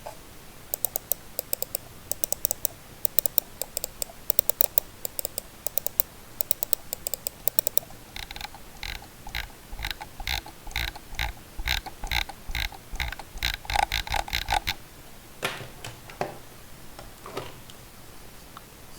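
Computer mouse clicked repeatedly: a run of sharp, crisp clicks, then, about 8 s in, a run of duller, lower clicks. A few single clicks follow near the end.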